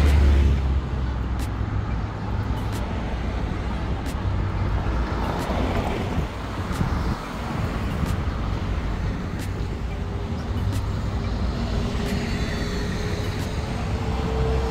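Steady low engine hum under an even rushing noise, as of a moving motor vehicle.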